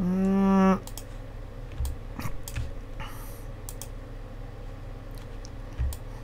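Scattered clicks of a computer keyboard and mouse, irregular and a second or so apart, over a faint steady low electrical hum. They follow a short hummed 'mmm' from a voice that lasts under a second at the start.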